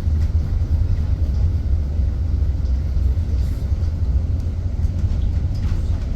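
Steady low rumble of a driverless bus in motion, heard from inside the cabin: road and running noise.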